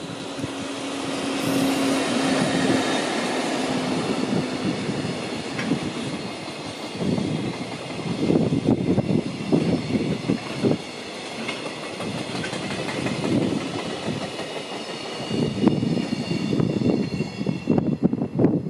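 Container freight train hauled by an EF65 electric locomotive passing close by: a low steady hum in the first few seconds as the locomotive goes by, then the steady rumble of the container wagons with repeated bursts of clickety-clack as their wheels cross the rail joints. The sound cuts off sharply as the last wagon passes at the very end.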